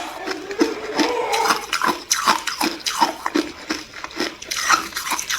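Ice being chewed with a person's mouth close to the microphone: a steady run of crunches, about two to three a second.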